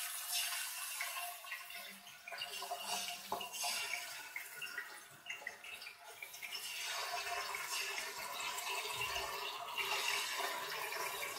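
Chunks of pork sizzling and crackling as they fry in hot vegetable oil in a kazan, with a few soft taps as more pieces are dropped in. The sizzle grows a little louder about halfway through.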